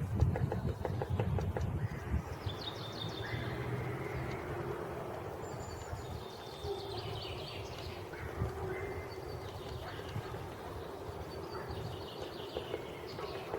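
Great spotted woodpecker chiselling at wood: quick irregular taps, thickest in the first two seconds and again near the end. Other songbirds sing short trilled phrases every few seconds.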